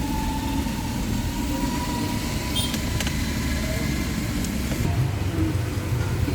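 Car engine idling with a steady low rumble and a couple of faint clicks near the middle.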